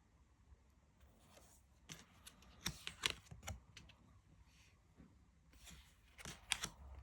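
Tarot cards being handled and flipped one by one, with short slides and snaps of card stock. The clicks come in two clusters, around three seconds in and again near the end.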